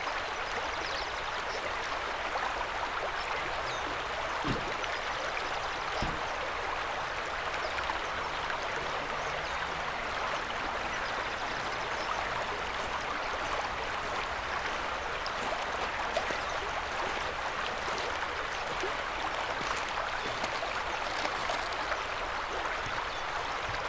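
River water rushing and burbling steadily, with small splashes here and there.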